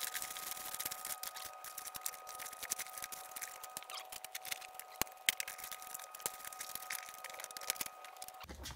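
Fast, dense clicking and crinkling from the grow tent's reflective-lined canopy fabric and frame being handled, with two faint steady tones underneath. It cuts off just before the end and gives way to a low hum.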